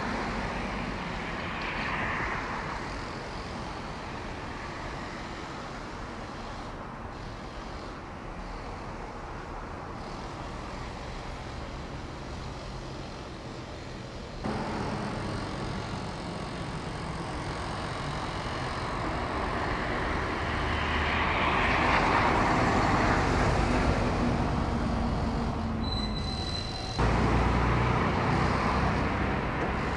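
Outdoor street ambience of steady road-traffic noise, with a vehicle passing louder about two-thirds of the way through. The background changes abruptly twice, and a brief high beep sounds near the end.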